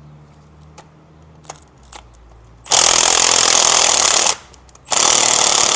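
Power tool on a 12 mm swivel socket, run in two loud bursts of about a second and a half each with a short pause between, working a nut loose.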